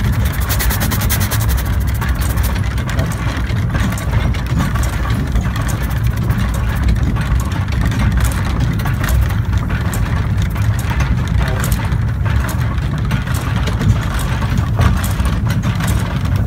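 The Steam Elephant, a replica early colliery steam locomotive, running along the track, heard from its footplate: a steady rapid mechanical clatter over a low rumble.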